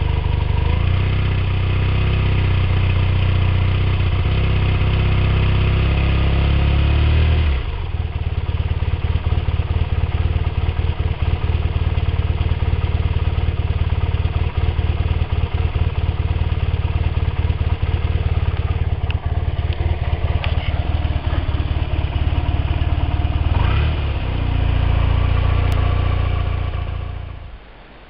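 Yamaha TDM850 parallel-twin engine running through a Dominator aftermarket silencer with its dB killer baffle removed. It is held at raised revs for about seven seconds, then drops to a lumpy idle. Near the end it is revved and held again, and the sound falls away just before the end.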